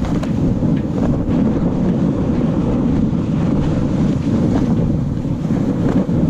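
Loud, steady wind buffeting the microphone of a camera riding on a plastic sled towed over snow. Under it the sled's bottom hisses and scrapes across the snow.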